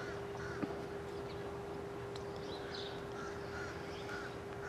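Birds calling: short chirping calls repeated every second or so, over a steady low hum.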